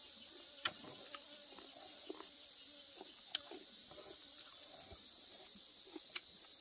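Steady high-pitched chorus of forest insects, with five or so short soft clicks scattered through it.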